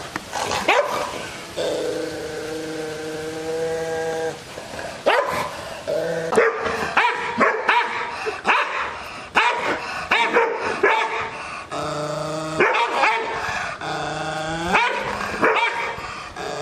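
An angry Rottweiler growling and barking. Long, steady growls open and close the stretch, and in the middle comes a run of sharp barks, about two a second.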